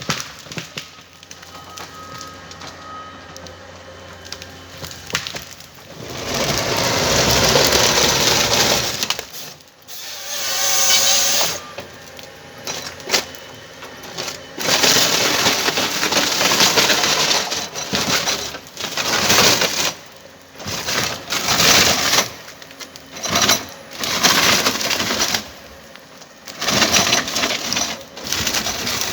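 Komatsu 931XC forest harvester with a C144 harvester head working timber. After a quieter steady stretch, wood cracks and splinters in repeated loud bursts as the head handles the stems.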